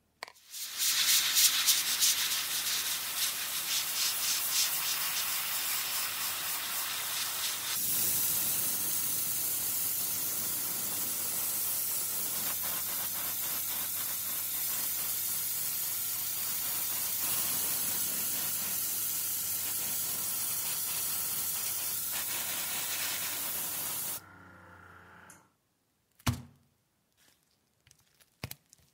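Airbrush spraying: a long, steady hiss of air and atomised paint that changes tone about eight seconds in and stops about 24 seconds in. A single short thump follows near the end.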